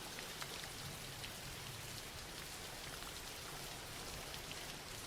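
Soft, steady rain falling, faint, with small scattered drop ticks.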